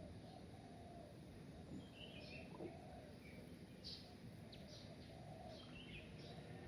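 Faint birdsong: scattered short high chirps and a lower short call repeated a few times, over a steady low rumble of background noise.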